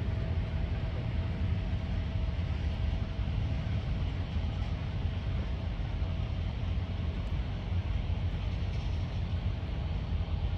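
Steady low outdoor rumble with hiss and a faint steady high tone, unchanging throughout.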